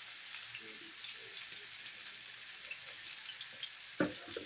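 Marinated beef strips sizzling in a hot frying pan: a steady frying hiss with fine crackles. A brief knock about four seconds in.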